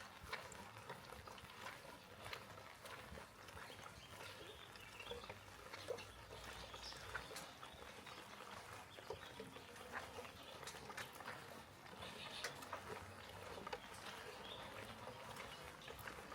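Faint steady rain with scattered drips and taps.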